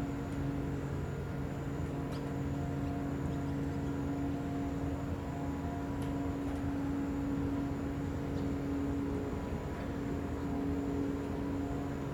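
Car ferry Ferry Kumamoto's diesel machinery droning steadily with a low, even hum as the ship berths. A few faint ticks sound over it.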